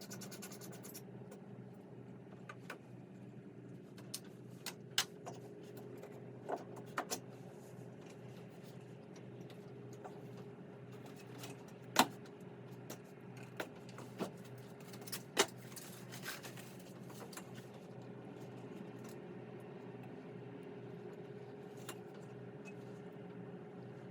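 Scattered sharp clicks and light scrapes of parts and hand tools being handled while an ignition coil pack is removed and fitted, over a steady low hum.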